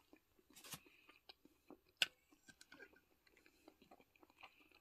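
Faint sounds of a person chewing and eating soup, with scattered small clicks. One sharp click about two seconds in is the loudest sound.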